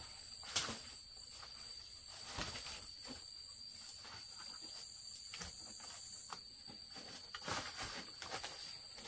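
A steady high-pitched insect drone, with scattered light knocks and rustles; the sharpest knock comes about half a second in, and several more cluster near the end.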